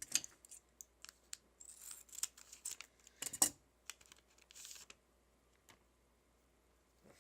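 Baseball cards being handled and flipped through, making a quick run of short clicks and papery rustles that stops about five seconds in.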